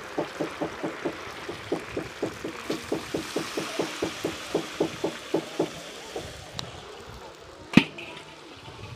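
A large iron wok emptied by pouring its liquid into a metal basin, heard as a hiss of pouring, over a steady run of quick ticks at about four or five a second. One sharp metal clank near the end is the loudest sound.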